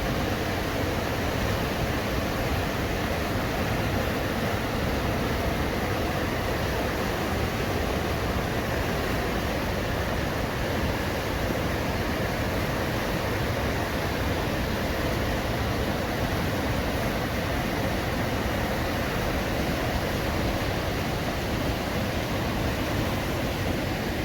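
River water rushing and foaming, a steady, even noise with no breaks.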